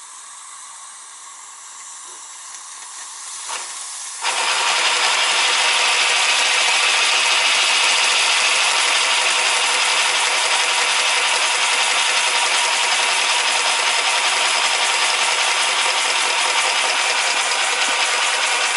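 Steam hissing from a live steam three-cylinder 0-8-4 garden railway locomotive with its boiler up to pressure: a fainter hiss at first, then about four seconds in a loud, steady rush of escaping steam starts suddenly and carries on.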